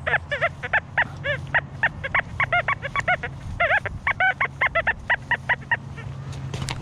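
A dog yapping: a fast run of short, high yips, about five a second, that stops near the end.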